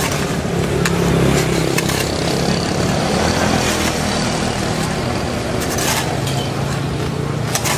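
A motor engine running steadily, its low hum rising and falling slightly in pitch, with a few sharp clicks and knocks over it.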